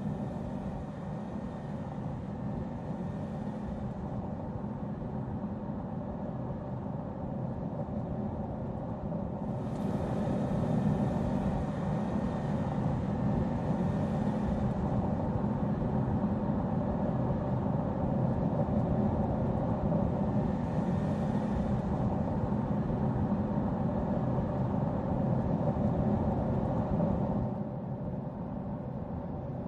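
Audi Q3 SUV driving on an open road: a steady hum of engine and tyre noise. It grows louder and brighter about ten seconds in and drops back shortly before the end.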